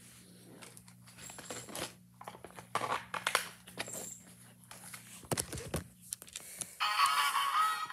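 Handling noise: rustling, scraping and scattered knocks and clicks as the phone is moved about. Near the end a battery-powered animated plush Snoopy toy starts playing its electronic song.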